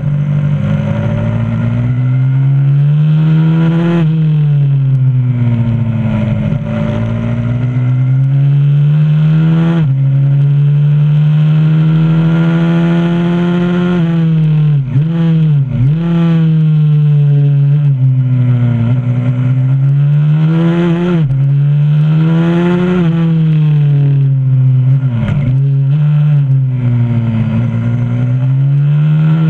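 Onboard sound of a 125cc supermoto pit bike's engine, revving hard as it accelerates and shifts up, then backing off for corners, so the engine pitch rises and falls again and again. Around the middle and again near the end, the revs dip sharply and briefly as it slows and changes down.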